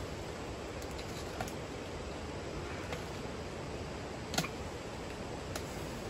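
Banana leaves being pulled and broken off the plant by hand: a few short sharp snaps, the loudest about four and a half seconds in, over a steady background hiss.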